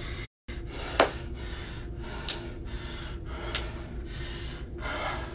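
A man breathing heavily after a hard bout of exercise, with three sharp breaths about a second and a half apart as he catches his breath.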